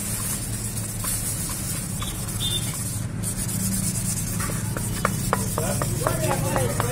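Wet sandpaper rubbed back and forth by hand over a plastic motorcycle headlight lens, a repeated scratchy hiss, sanding off the yellowed, weathered surface. A steady low hum runs underneath.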